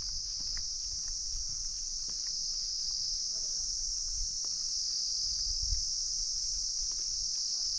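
Steady high-pitched insect chorus, one unbroken shrill drone with no pauses, over a faint low rumble.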